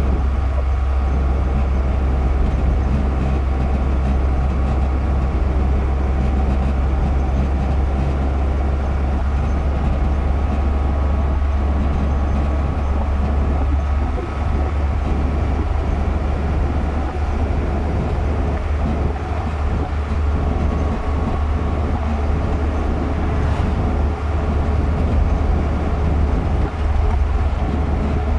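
Steady low rumble of engine and tyre noise inside a car's cabin cruising along a highway.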